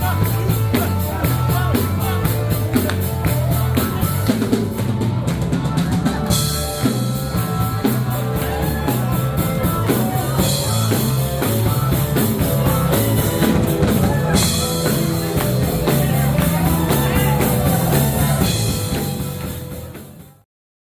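Rock-style background music with a steady drum-kit beat and bass, fading out near the end.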